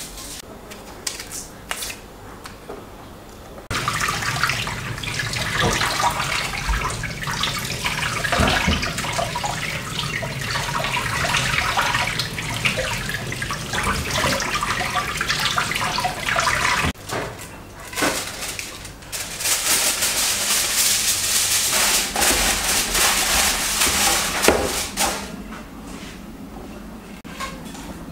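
Kitchen tap running onto peeled potatoes as they are rinsed by hand in a wicker basket. The water starts about four seconds in, breaks off briefly, runs again, and stops a few seconds before the end.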